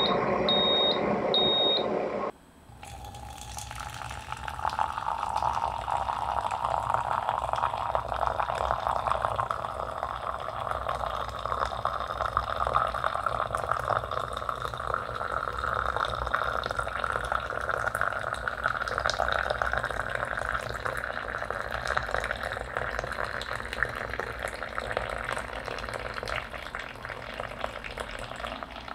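Three short high beeps from a Hario electric kettle set to 92 °C, over a loud steady noise, for the first two seconds. Then hot water pours in a thin stream from the kettle into a square glass beaker of loose herbal tea, a continuous splashing fill whose pitch rises slowly as the glass fills, stopping right at the end.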